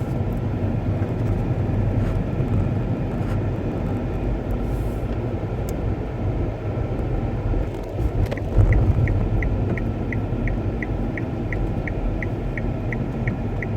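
Car cabin noise: a steady low rumble of the car on the road. About eight seconds in, a turn indicator starts ticking evenly, roughly two and a half ticks a second, and a short low thump comes just after it starts.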